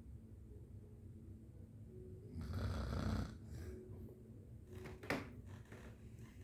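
A sleeping man snoring: one loud, low snore lasting under a second partway through, then a brief sharp noise about five seconds in as the next breath comes.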